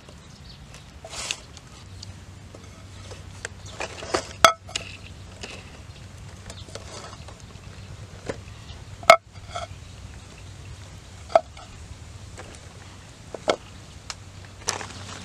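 A knife scraping and cutting a green plant stalk, then cut lengths of stalk knocking into a metal wok as they are laid in. There are several sharp knocks with a brief metallic ring, the loudest about nine seconds in.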